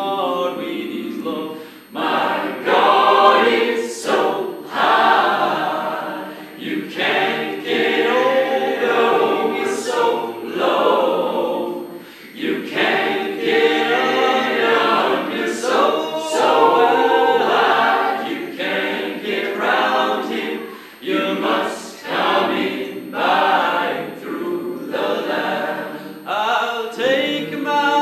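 Mixed choir of men and women singing a sacred song a cappella, phrase after phrase with short breaks for breath between.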